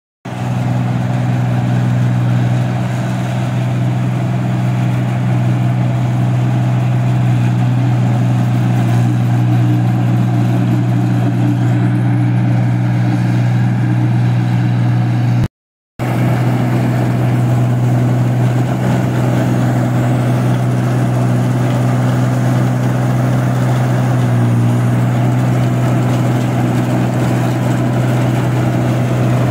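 New Holland rice combine harvester running steadily at work in a paddy field: a loud, even engine drone with a low hum that holds the same pitch throughout. The sound drops out for about half a second midway.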